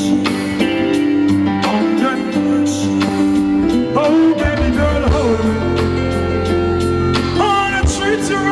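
Live reggae band playing, with bass, guitar and keyboard chords, and some singing over it.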